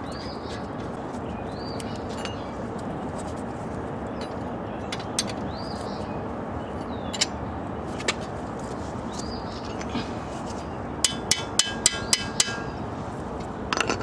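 Sharp metallic clicks of a ratchet wrench tightening the brake caliper bolt, a quick run of about six near the end. Underneath is steady outdoor background noise, with birds chirping now and then.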